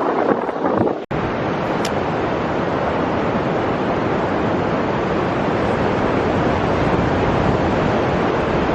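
Pacific surf at the shore making a steady, even rush, mixed with wind on the microphone. The sound cuts out for an instant about a second in, then carries on at the same level.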